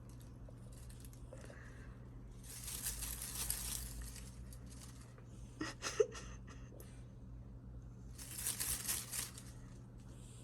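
Rustling and scratching in two spells of about a second and a half each, with a few sharp clicks between them, over a low steady hum.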